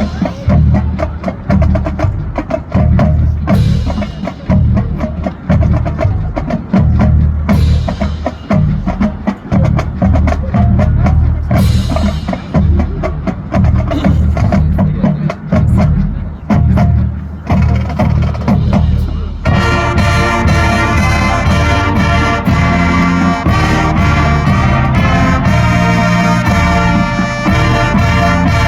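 Marching band playing a Christmas medley: drums and low percussion with several cymbal crashes for most of the stretch, then about twenty seconds in the full brass section comes in over the drums.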